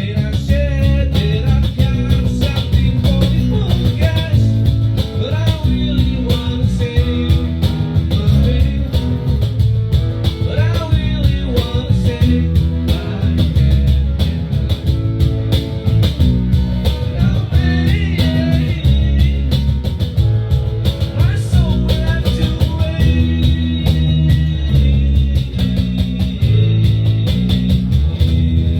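Live band jamming: a guitar playing melodic lead lines with bends over a steady bass and drums.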